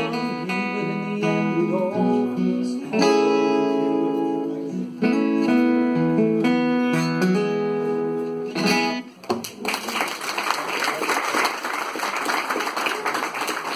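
Acoustic guitar strumming the closing chords of a song, which ring and end about nine seconds in, followed by an audience applauding.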